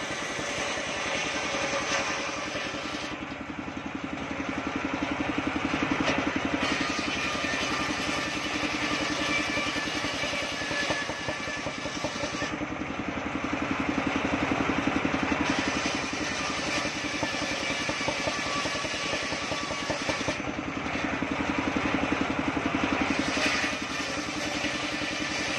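Homemade engine-driven circular saw bench running steadily while ripping waru (sea hibiscus) boards lengthwise. Its drone swells in loudness three times, about eight seconds apart, as boards are fed through the blade.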